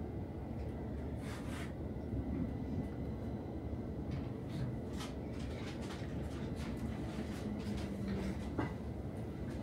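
Steady low rumble inside a Stockholm metro car at its end station, with scattered short clicks and knocks.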